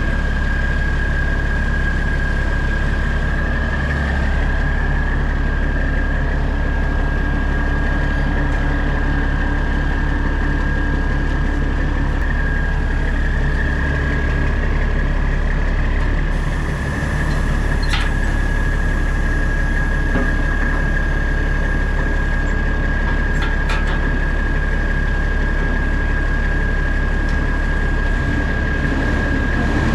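Heavy diesel semi-truck engine running steadily, likely idling, with a constant high whine held throughout and a few faint clicks.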